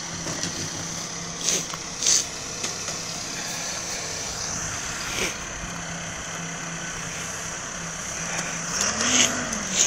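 A truck engine idling steadily, with a few short knocks and a brief rise and fall in its pitch near the end.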